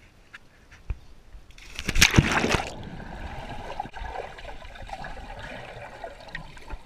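A loud splash about two seconds in as a body jumps into a swimming pool, followed by steady muffled water noise heard from a camera held under the water.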